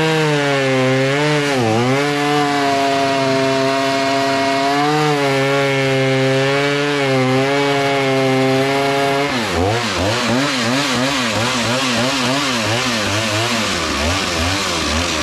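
Gas chainsaw with a 20-inch bar running at high throttle while cutting through a black oak log, its engine pitch sagging slightly under load. About nine seconds in, the engine speed starts swinging rapidly up and down and keeps doing so to the end.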